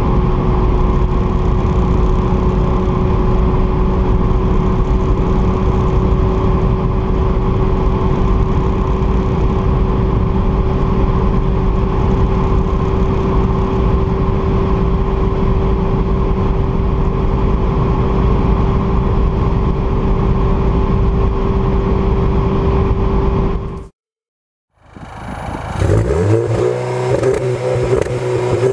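Audi S1's turbocharged 2.0 TFSI four-cylinder pulling steadily in sixth gear near top speed, about 230 to 240 km/h, heard inside the cabin with a steady engine drone and heavy road and wind noise. Near the end the sound cuts out for about a second, then the car's exhaust is heard from behind it.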